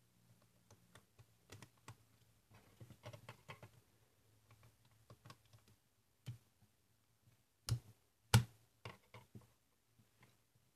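LEGO Technic plastic parts (liftarms, axles and long beams) clicking and tapping against each other as they are handled and fitted together, with two louder sharp clicks a little past two-thirds of the way in.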